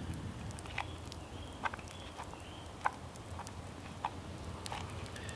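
Quiet woodland ambience: a low steady background with faint bird calls and a few scattered sharp ticks and clicks, the most distinct about a second and a half and three seconds in.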